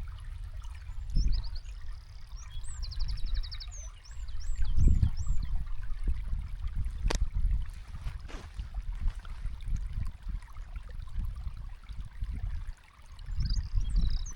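Thunder rumbling low in several rolling swells, loudest about five seconds in, with small birds chirping briefly near the start and again near the end. A single sharp click comes about seven seconds in.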